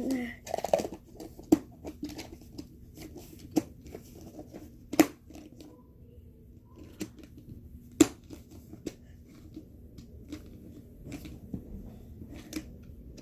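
Scattered clicks and knocks of small objects being handled, with the two sharpest clicks about five and eight seconds in.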